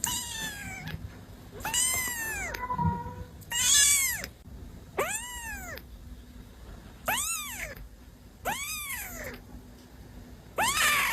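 Kitten meowing over and over: seven high meows, each rising then falling in pitch, one every second and a half to two seconds.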